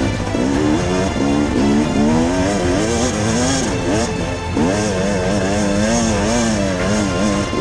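KTM EXC enduro motorcycle engine revving up and down repeatedly as the bike is ridden hard, with music playing underneath.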